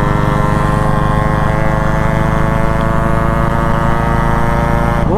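Motorcycles running at a steady cruising speed side by side, a Yamaha RX100 two-stroke among them, giving one steady engine note. Right at the end the pitch starts to rise as an engine is revved.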